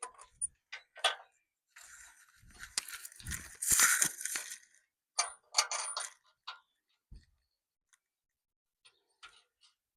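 Metal hardware being handled while fitting bolts to a steel bumper: a few sharp clinks, a longer stretch of scraping and rattling in the middle, then more clinks and a few faint ticks near the end.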